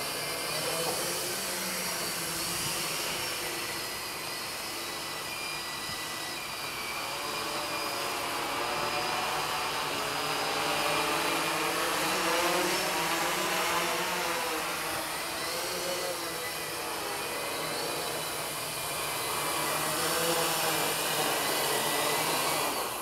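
Foxtech Mantis octocopter in flight: eight brushless motors (4822, KV390) spinning 14-inch carbon-fibre propellers, making a steady multi-rotor buzz. Its several pitches waver up and down together as the motors change speed, a little louder around the middle and near the end.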